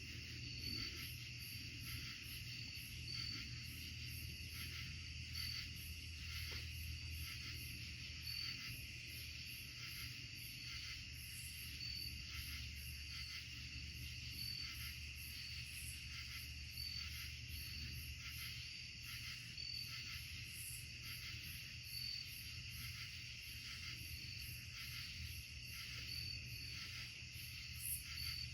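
A night chorus of insects trilling steadily, with one high chirp repeating about once a second over the continuous trill, and a steady low hum underneath.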